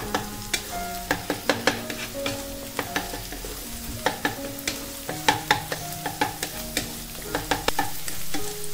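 Wooden spatula scraping and tapping against a nonstick wok, stirring egg scrambled with chopped vegetables as they fry with a light sizzle. The taps come irregularly, a few each second.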